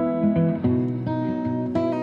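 Background music: plucked acoustic guitar playing a gentle melody with chords.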